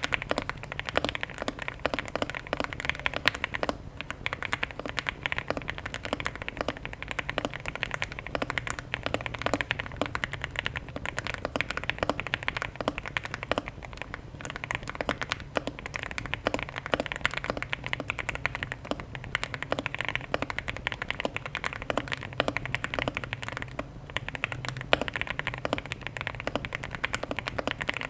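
Fast continuous typing on a Leobog Hi8 mechanical keyboard with lubed Alpaca linear switches, a PC plate and full foam, with dense key clicks and a few brief pauses.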